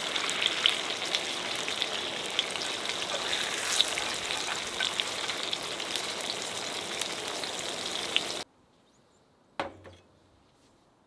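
Tofu pan-frying in oil, sizzling with many small crackling pops. The sizzle cuts off abruptly about eight seconds in, leaving near quiet broken by a single knock.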